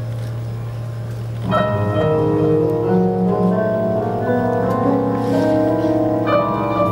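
Live music: a steady low drone, joined about a second and a half in by sustained chords of many held notes that carry on until the sound cuts off abruptly.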